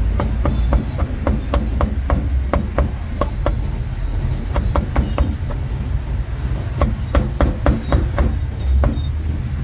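Meat cleaver chopping roast meat on a thick round wooden chopping board: a run of even knocks about three a second, a short pause, then more chops in clusters, over a low steady rumble.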